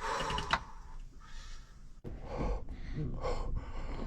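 A person breathing hard, puffing out several short breaths from the heat, with a sharp click about two seconds in.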